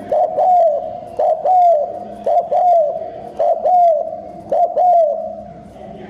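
Spotted dove cooing fast and repeatedly: five quick phrases about a second apart, each a short note followed by a longer note that rises and falls.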